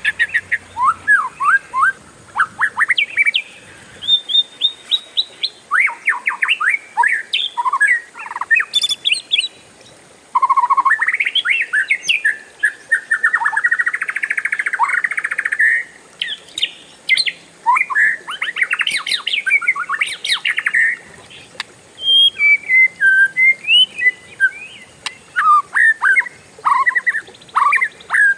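Oriental magpie-robin (kacer) singing loudly: a varied run of quick whistled phrases and chatters, with a long, unbroken rapid trill (the 'ngeroll') in the middle.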